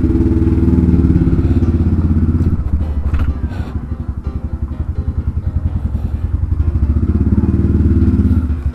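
Yamaha Byson FZ16's single-cylinder engine, running a Tiger carburettor, pulling away at low speed. It eases off about three seconds in, with a single clack, then builds again toward the end.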